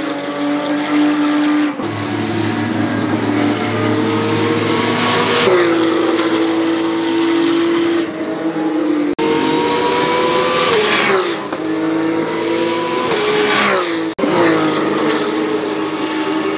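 Porsche 911 GT3 Cup race cars' flat-six engines running at high revs on track. The pitch climbs, then drops at upshifts, and the sound jumps abruptly several times from one car to another.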